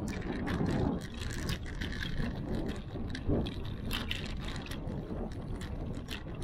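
Rumbling wind noise on a bike-mounted action camera's microphone, with frequent light clicks and rattles, as from a bicycle being ridden.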